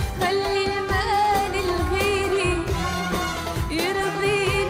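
A woman singing an Arabic song in long held, wavering notes over a live band with a steady percussion beat.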